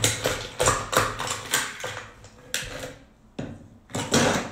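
Ice cubes being dropped into a glass tea-infuser bottle, each landing with a sharp clink; about seven clinks, irregularly spaced, some with a short ring.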